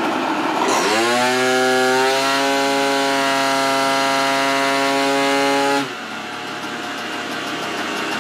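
Gilera Runner scooter's two-stroke single, bored to 172 cc with a Malossi cylinder kit, pulling a full-throttle run on a roller dyno. About a second in it revs up quickly, then holds one steady high pitch while the variomatic lets road speed climb. The throttle is shut near six seconds in and the engine note drops away, leaving a quieter rushing as the roller coasts down.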